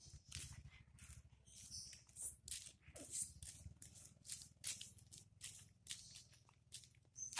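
Faint footsteps scuffing on brick paving, about three a second, as several people walk along.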